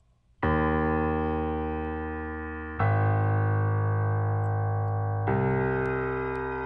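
Background music: slow, sustained piano or electric piano chords, a new chord struck three times and each left ringing and slowly fading.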